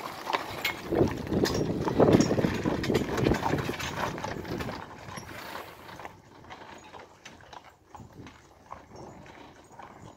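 Hooves of a pair of draft horses clip-clopping at a walk on a paved lane, with the manure spreader they pull rumbling along behind. Loud at first, then fading from about six seconds in as the team moves away.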